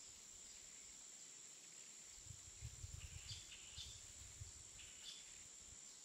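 Faint open-air ambience: a steady high-pitched drone, with a few short chirps about three and five seconds in. Low wind rumbles on the microphone come in the middle.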